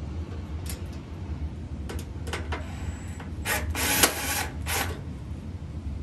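Cordless drill-driver running in several short bursts as it drives screws into the dryer's top panel, the longest and loudest run about four seconds in.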